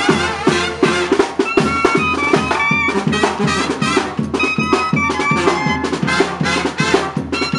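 Brass band playing a lively tune, with trumpets holding notes over a quick, steady drumbeat.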